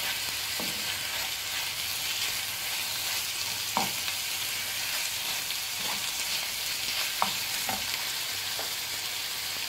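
Diced chicken and chopped onion sizzling steadily in a frying pan as a wooden spoon stirs them, with a few light knocks and scrapes of the spoon against the pan.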